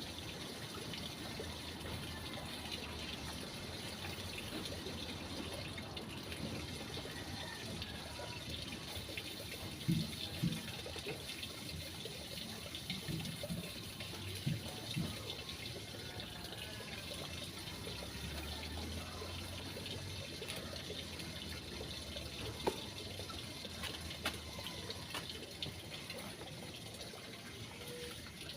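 Water running steadily, as from a tap or hose during washing, with a few short knocks about ten and fifteen seconds in.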